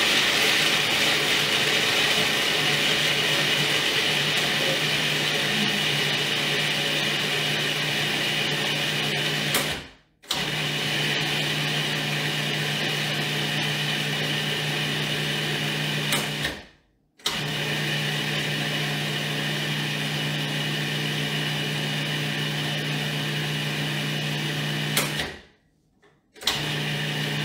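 Food processor motor running steadily, grinding a dry mix of oat flour, mesquite powder, cinnamon and salt to a fine flour. It cuts out briefly and restarts three times, then stops near the end.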